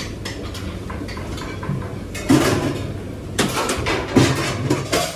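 Commercial kitchen: a steady low machinery hum with four loud clatters, about two, three and a half, four and five seconds in.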